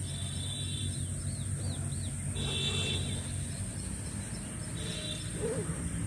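Birds calling outdoors: several short high chirps and a run of quick arched notes in the first half, with a few more chirps later, over a steady high hiss and a low rumble.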